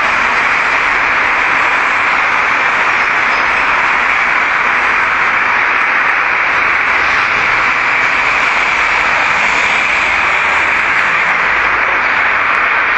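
Loud, steady hiss-like noise, strongest in the upper middle range, with no speech or distinct events.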